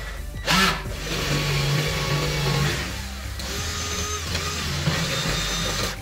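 Background music over an AEG cordless drill running as it bores into a metal door frame, with a loud sudden burst of noise about half a second in.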